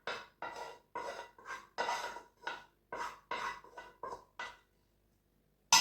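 Rhythmic scraping in a kitchen strainer, about two strokes a second, as a cooked garlic, ginger and juice mixture is worked through it. After a short pause there is one sharp knock near the end.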